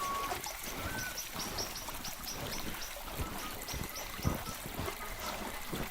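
Outdoor ambience of running water, with a bird's quick series of short high chirps twice and scattered low knocks.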